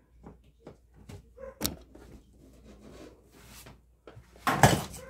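Handling noises around an opened washing machine: scattered light clicks and knocks, and one louder clatter about four and a half seconds in.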